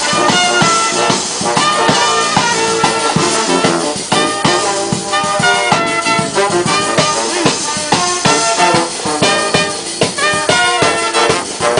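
A street brass band playing: trumpets and trombones over a sousaphone bass line, with a drum kit and bass drum keeping a steady beat.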